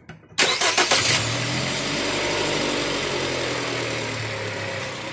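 Jeep Cherokee engine cranked by the starter with a quick run of strokes, catching about a second in, then settling into a steady idle that eases down slightly.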